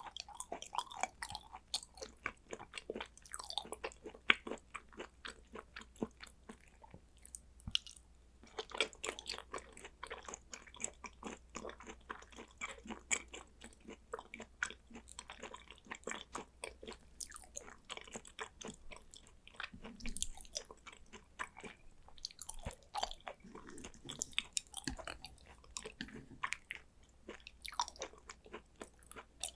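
Close-miked chewing and biting of thin slices of raw Korean hanwoo beef: a dense, irregular run of small mouth clicks.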